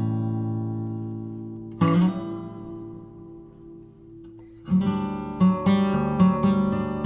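Background music played on acoustic guitar: a chord struck about two seconds in rings out and fades, then a quicker run of plucked notes and chords comes in about five seconds in.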